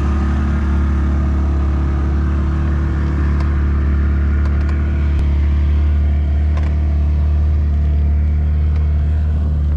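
25 hp Parsun outboard motor running steadily with the boat under way, a constant low drone with a few faint clicks over it.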